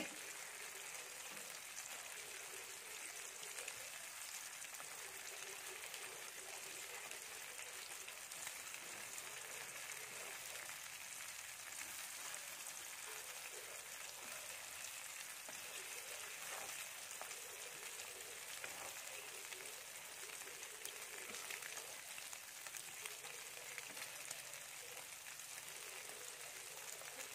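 Beaten egg with chopped greens frying in oil in a nonstick pan: a steady sizzle.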